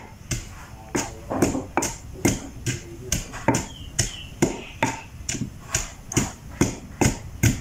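Wooden pestle pounding a yellow kroeung spice paste in a heavy stone mortar: steady, evenly spaced thuds, about two a second.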